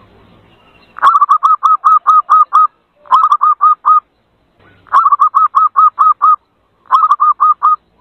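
Zebra dove (perkutut) calling in four quick runs of short, arched cooing notes, about five a second, the runs alternating long and short.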